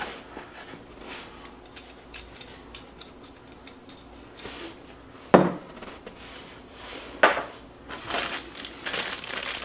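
Unboxing handling: small metal parts and packing being rummaged through in a cardboard box, with light clinks and rustles and two sharper knocks about five and seven seconds in.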